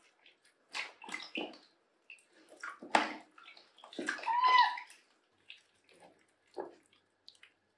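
Bath water splashing and sloshing in a plastic tub as hands wash a wet cat's face and head with a cloth, in separate splashes with a sharp one about three seconds in. A short high tone rises and falls about four and a half seconds in.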